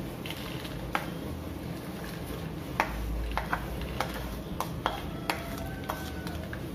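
Spatula scraping and tapping against a glass plate as crispy fried spice crumbs are pushed off it: a string of light, irregular clicks, about ten, over a low steady hum.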